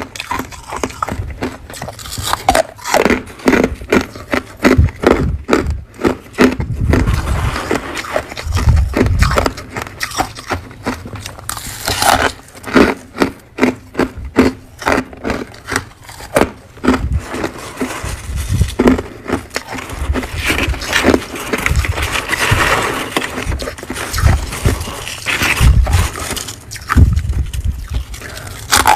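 Rapid, irregular crunching of frozen humidifier frost being chewed close to the microphone, with occasional louder, deeper crunches.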